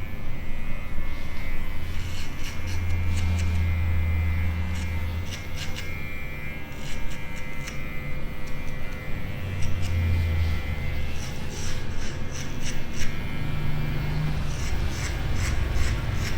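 Electric hair clippers buzzing during a fade haircut, in a pass about three seconds in and a shorter one around ten seconds, with runs of light, quick clicks in between.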